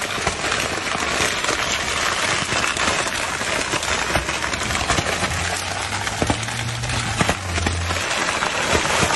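Plastic water bottles strapped around a car wheel crackling and crunching in a dense run of clicks as the car rolls slowly on them, with a low hum for a couple of seconds past the middle.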